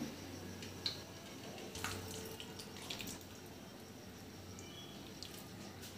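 Quiet handling of steel cookware: a few light clicks and scrapes of a steel spoon against a steel bowl over a steady low hiss.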